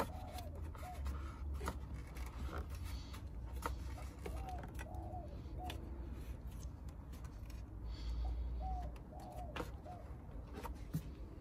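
Faint clicks and scrapes of wing nuts being hand-tightened onto the studs of a steel battery hold-down clamp, over a steady low rumble. A few short, soft bird calls sound in the background.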